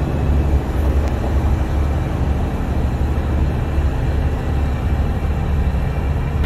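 Heavy diesel truck engine idling steadily with a low rumble.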